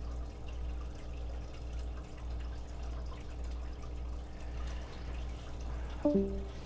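Steady low electrical hum with faint background hiss, and a brief voice-like sound about six seconds in.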